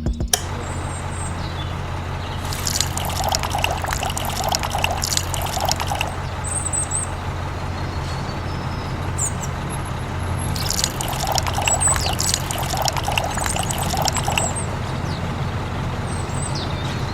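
Liquid pouring and splashing in two spells of a few seconds each, over a steady low hum.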